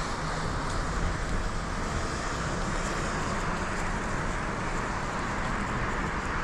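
Steady road-traffic noise: a continuous rush of passing cars.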